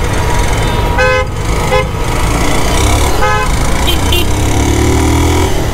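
Vehicle horns honking in dense road traffic, with short toots about a second in and again around three seconds, and briefer ones between, over a steady low rumble of engines. A rising engine note comes in near the end.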